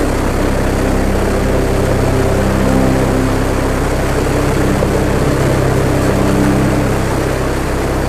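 Background music of sustained chords that change every second or two, over a steady low rumble.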